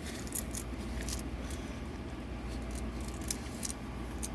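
Faint small clicks and taps of nail-art tools and bottles being handled, with one slightly louder tick near the end, over a steady low hum.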